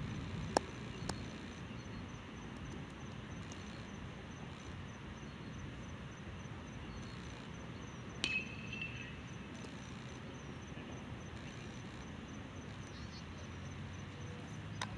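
Faint, steady low rumble of a twin-engine Boeing 757 jet on approach, heard from the ground. There are two sharp clicks about half a second in and a short chirp about eight seconds in.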